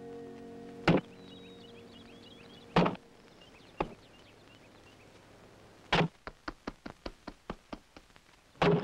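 An axe chopping wood, heavy single strikes a second or two apart, with faint bird chirps. From about six seconds in, a quicker run of lighter taps, about four a second, sounds between the blows.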